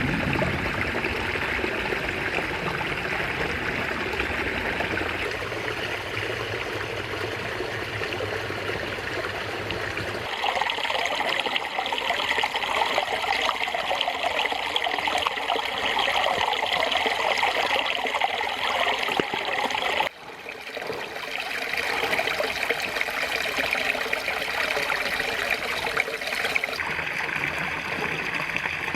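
Shallow stream water running and babbling over rocks. About a third of the way in the sound turns brighter and louder, and about two-thirds in it drops out for a moment and swells back.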